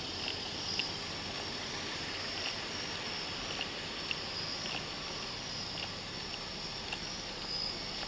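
A steady high chorus of night insects, with short chirps scattered through it, over a low steady hiss.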